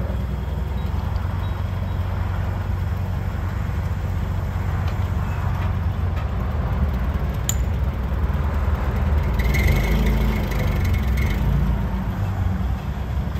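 Yale propane forklift's engine running steadily with a low rumble. There is a sharp click about halfway, and a little later it grows louder, with a higher steady tone for about two seconds.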